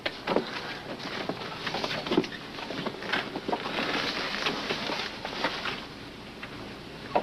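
A hungry woman's stomach gurgling and rumbling, a crackly, bubbly churning full of small irregular pops.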